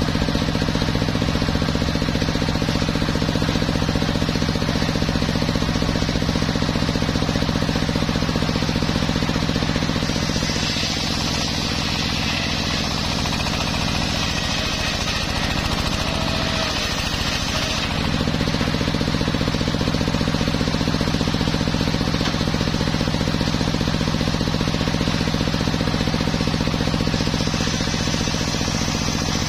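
Large circular sawmill blade, driven by a steadily running engine, ripping a teak log lengthwise. A higher hiss of the blade biting into the wood comes in from about ten seconds in until about eighteen seconds, with the engine note wavering under the load, and returns near the end.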